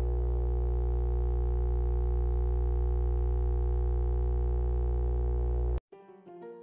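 Steady electronic synthesizer drone: a deep low hum under a stack of held, unchanging tones. It cuts off suddenly near the end, and soft piano notes begin.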